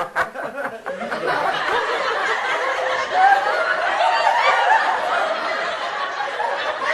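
A crowd of many people laughing together, a dense wash of overlapping laughs and chuckles that swells briefly about three seconds in.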